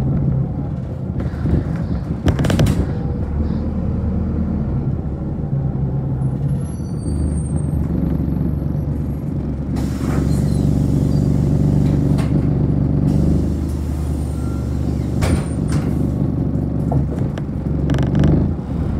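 City bus running, heard from inside the cabin: a steady low hum with rattles, and a few sharp knocks, one about two and a half seconds in and another near the middle of the second half. The hum grows louder about halfway through.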